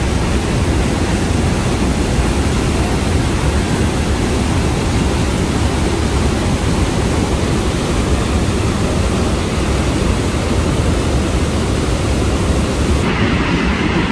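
Steady, loud roar of Niagara Falls' water pouring and crashing close by. About a second before the end it changes abruptly to a duller rumble.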